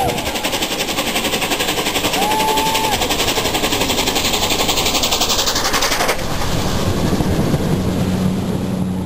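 Three-cylinder A1 Pacific steam locomotive 60163 Tornado and its train passing at speed: a loud rush of exhaust and wheel noise with a fast pulsing beat, and a brief high tone about two seconds in. About six seconds in the rush cuts off sharply, leaving a lower, steady hum as the train goes by.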